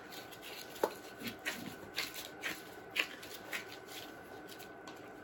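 Gloved hands kneading and working a stiff homemade pop-up bait paste. The glove and dough make soft, irregular crackles and ticks, with one sharper click just under a second in.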